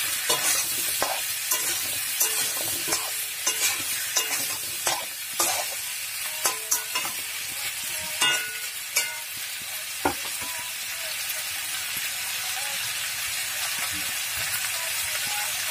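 Potato and raw banana pieces sizzling in hot oil in a metal kadai while a spatula stirs them, scraping and knocking against the pan. The stirring strokes come often for about the first ten seconds, then thin out, leaving a steady sizzle.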